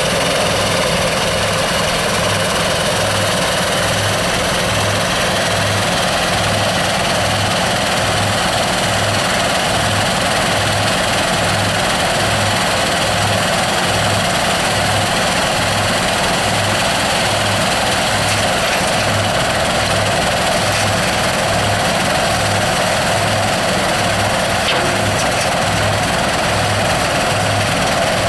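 Engine-driven soil screening machine running steadily, with a regular low throb about one and a half times a second.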